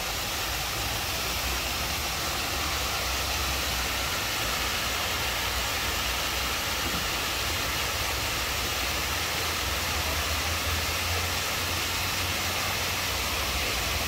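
Artificial rock waterfall pouring into a pool: a steady rushing of falling water.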